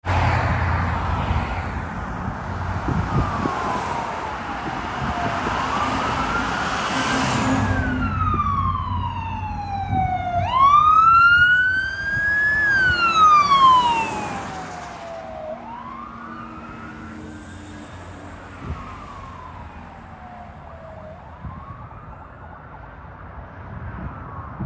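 A Ford E-450 ambulance's siren on a slow wail, rising and falling in pitch every few seconds over passing road traffic. It grows loudest as the ambulance goes by, about halfway through, then fades as it drives away.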